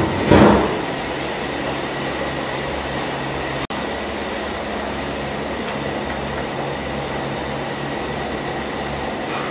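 Steady mechanical roar of a commercial kitchen with a low hum. About half a second in, a brief loud metallic clank as a large domed metal lid is lifted off a big cooking pot.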